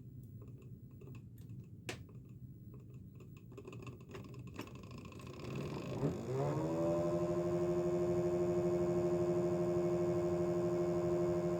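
Rewound electro-hydraulic power steering pump motor, now a three-phase brushless motor on a new BLDC controller, starting up on a bench test: a few clicks, then about halfway through it spins up with a rising whine and runs on at a steady pitch, confirming the repaired motor works.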